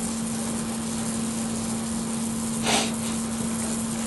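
Brazing torch flame hissing steadily as it is held on copper tubing, over a steady low hum, with one brief louder rush about three-quarters of the way through.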